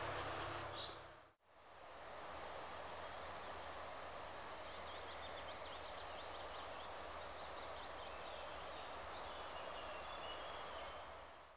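Woodland ambience: a steady background hiss with faint high chirps, likely small birds, and a brief high buzz a few seconds in. The sound dips out and back in about a second in.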